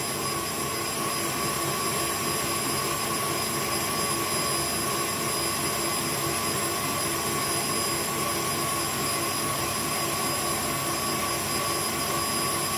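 KitchenAid Artisan stand mixer running steadily, its whisk beating egg whites into meringue in a stainless steel bowl: an even motor whine with whisking hiss that does not change.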